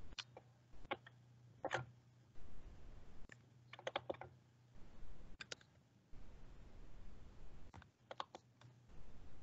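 Faint, scattered computer keyboard and mouse clicks: single taps here and there, and a couple of quick runs of three or four clicks.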